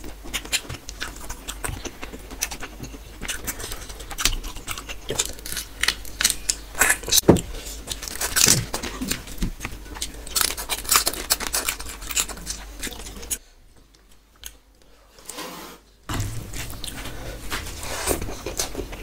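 Close-miked eating: chewing and crunching of rice topped with crisp fried sev, eaten by hand, with wet smacking and fingers mixing food on a steel plate. The sounds stop for a couple of seconds about two-thirds of the way through.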